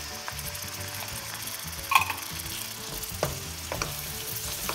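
Onion masala frying in hot oil in a wok, sizzling as canned tomato puree is poured and scooped in, with a sharp knock about two seconds in and a few lighter clicks after it.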